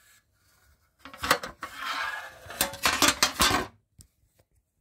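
Small bottles and packaging of an e-liquid box being handled, with clattering and rubbing and several sharp clicks, from about a second in to nearly four seconds in.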